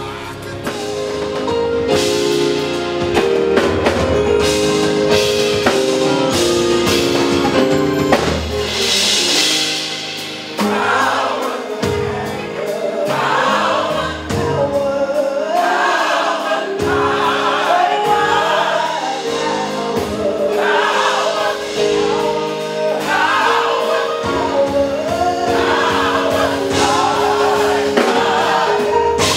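Gospel choir singing with a band: drums and held chords, the choir's voices coming in in phrases from about ten seconds in.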